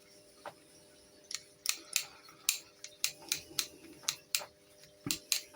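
About a dozen sharp, irregular clicks and taps, starting about a second in, as the small parts of a stripped-down replica air pistol are handled and fitted back together.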